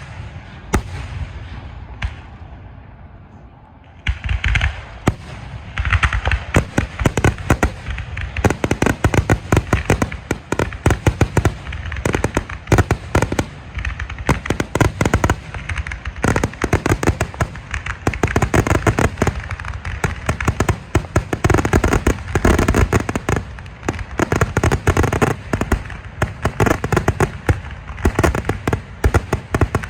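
Aerial fireworks going off: a few single bangs, then from about four seconds in a dense, continuous barrage of rapid cracks and bangs.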